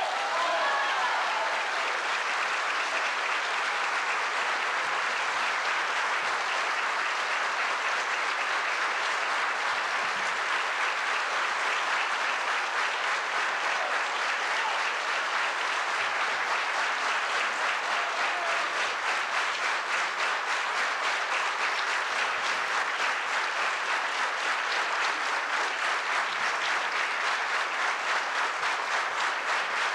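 Theatre audience applauding, the clapping falling into a steady rhythm in unison over the second half.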